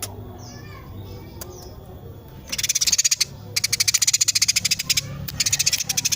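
Female sparrow calling, the burung gereja used as a master-song bird. A few quick downward chirps come first. About two and a half seconds in, it breaks into a fast, dense chattering rattle in three runs, the close-packed 'nembak rapet' delivery.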